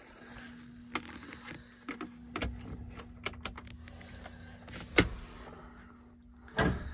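A steady low electric hum, with scattered light clicks and knocks and one sharp knock about five seconds in. The hum stops near the end with a louder clunk.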